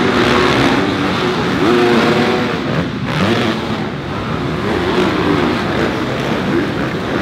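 Several motocross bikes racing together, engines revving up and down as they jump and corner.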